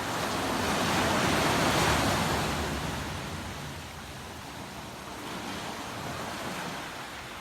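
Ocean waves washing onto the shore: one wave swells up and breaks in the first couple of seconds, then fades, and a smaller wash comes in near the end.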